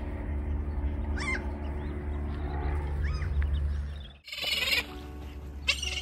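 Gulls calling as they fly overhead: a couple of short cries in the first seconds and louder, shrill calls near the end. A steady low rumble runs underneath and cuts out about four seconds in.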